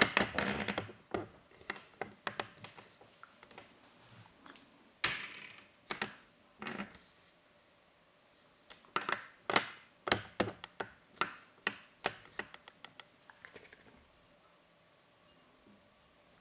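Irregular light taps, knocks and scrabbling of a kitten playing on a carpeted cat tree and batting at its toys. The taps come in short flurries with pauses, the busiest run starting about nine seconds in.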